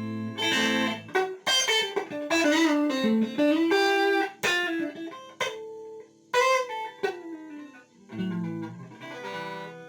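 Electric guitar played through a bus compressor effect: a chord, then a run of single plucked notes, then another chord about eight seconds in that rings on.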